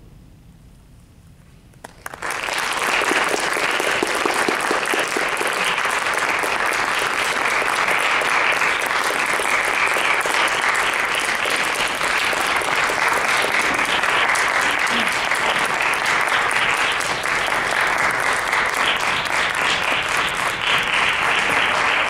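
Audience applause breaking out suddenly about two seconds in, after a brief hush at the end of the music, and carrying on steadily.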